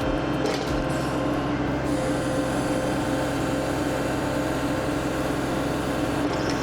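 Kubota tractor's diesel engine running steadily at a constant speed, loud and even.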